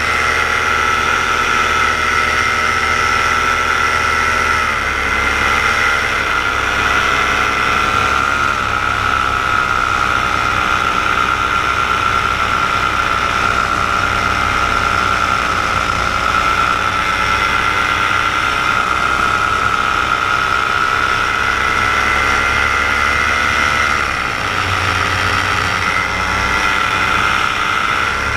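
Paramotor's engine and propeller running steadily in flight: a loud drone with a high whine on top. The pitch dips and comes back about five seconds in and again near the end.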